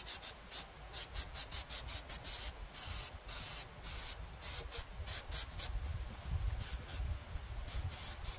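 Aerosol can of Rust-Oleum High Heat spray paint hissing in many short bursts, with a few longer ones, as black paint is sprayed onto a mower muffler. A low rumble runs underneath.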